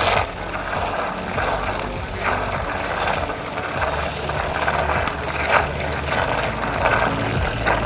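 Electric lassi-churning machine running steadily, its spinning beater whipping curd in a steel pot.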